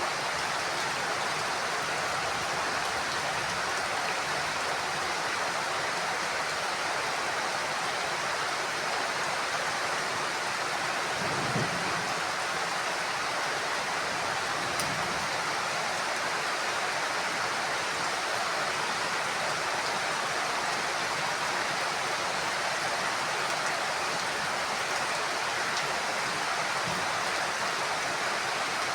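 Heavy rain falling steadily on a house roof, an even hiss, with one brief low thump about a third of the way in.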